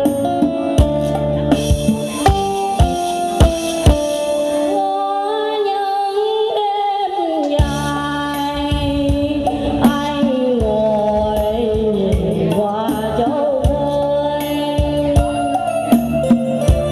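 A woman sings into a microphone over an electronic keyboard's accompaniment with a programmed drum beat. The keyboard plays alone at first; the singing comes in about five seconds in, as the beat drops out for a couple of seconds before coming back.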